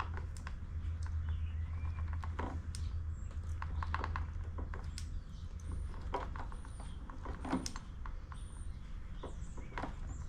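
Irregular small clicks and taps of needle-nose pliers and fingers working a rubber fuel line onto the plastic fuel tank fitting of a backpack blower, over a steady low hum.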